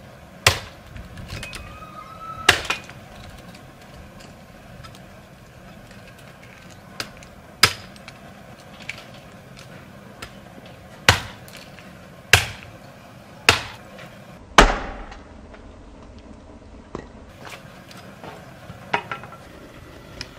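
Hatchet splitting wood on a log chopping block: about seven sharp blows one to four seconds apart, then a few lighter knocks near the end.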